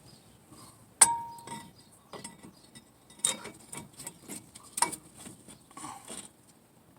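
Metal tools and brake parts clinking and knocking as they are handled during front brake caliper reassembly. One sharp clink about a second in rings briefly, and a few lighter knocks follow.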